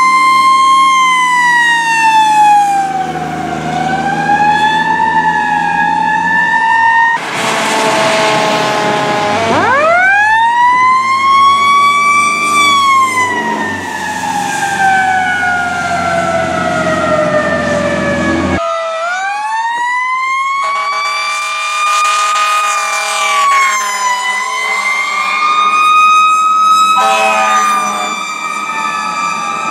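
Fire truck sirens wailing, rising and falling in pitch, with blasts of air horn several times. About nine seconds in a siren winds up from a low pitch and slowly falls away, and a truck engine's rumble underlies the first part until the sound changes abruptly and another siren winds up.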